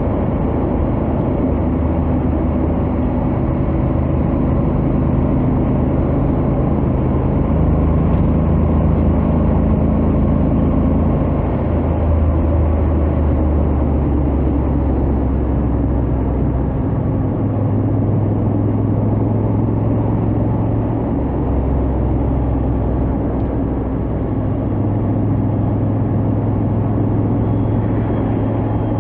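Honda X-ADV 750's parallel-twin engine and stock exhaust running at highway speed under a steady haze of wind and road noise, the engine note holding steady and shifting pitch a few times.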